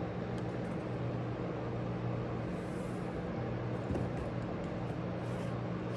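Steady low hum with a few fixed tones over an even hiss, with one faint tap about four seconds in.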